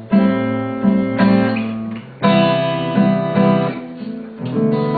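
Acoustic guitar strumming chords, each chord struck and left to ring, with no singing.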